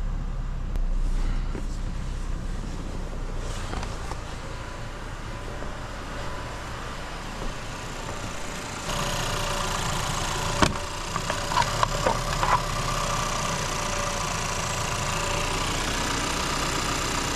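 2021 Chevrolet Malibu engine idling steadily, running on its newly replaced alternator, which is charging at almost 14 volts. About nine seconds in a louder steady hum joins, followed by a sharp click and a few short tones.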